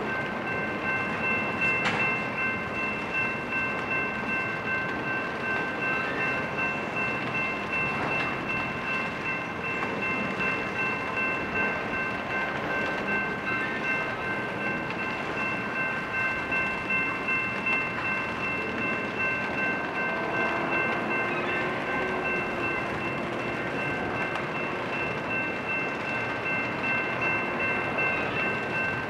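Slow-moving intermodal freight train rolling past, its cars rumbling with a gentle regular pulse, with a steady high-pitched whine on top.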